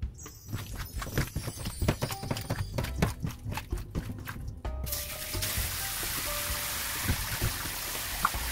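A gloved hand kneading raw chicken gizzards with flour in a stainless steel bowl, making rapid wet squishing and clicking sounds. About five seconds in, tap water starts running into the bowl as the floured gizzards are rinsed.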